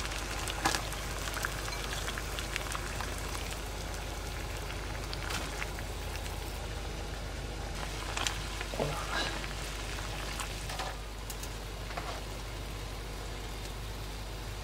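A saucepan of water at a rolling boil, bubbling steadily, with scattered splashes and light knocks as vegetables and meat are dropped in.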